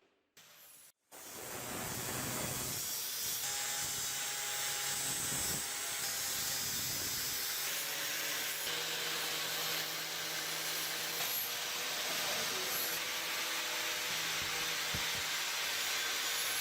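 Steady, continuous hissing spray with a faint motor hum underneath, running without a break.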